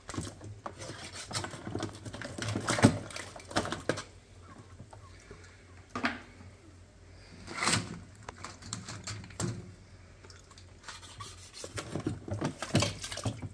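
Cooked mud crabs being handled in a plastic tub of cold water: irregular water splashes and small clicks and knocks of shell and knife as their ties are cut off, with a few louder splashes about three seconds in, midway and near the end.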